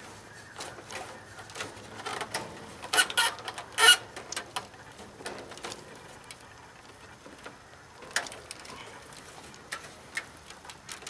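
A self-tapping screw being driven by hand with a screwdriver through a metal conduit saddle into a wooden fence board: irregular creaks, squeaks and clicks as the screw turns, loudest in a burst about three to four seconds in.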